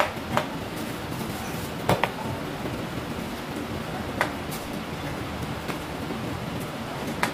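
Steady background noise of a working kitchen, with a few sharp knocks and clinks scattered through it at irregular intervals.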